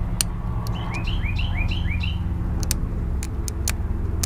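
A bird sings a quick run of about five rising-and-falling chirps about a second in, over a steady low rumble, with a few sharp ticks scattered through.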